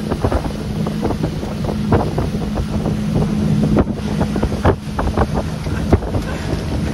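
Motorboat running at speed while towing an inflatable tube: a steady engine drone under rushing wake water and wind buffeting the microphone, with irregular knocks and thumps throughout.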